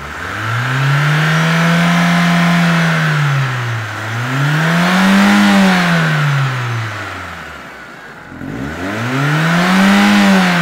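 1996 Ford Escort 1.6 engine revved three times, each time climbing, holding briefly and falling back toward idle. The engine is running on petrol rather than its LPG system.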